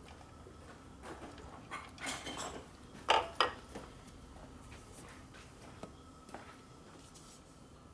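Light metallic clinks and taps of tools or engine parts being handled. A short flurry of sharper clinks comes about two to three seconds in, with the two loudest just after three seconds.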